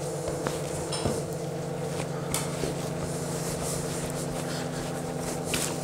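Steady hum of a machine or appliance in the room, with faint soft rubbing and pats as soft biscuit dough is rolled by hand on a floured wooden worktop.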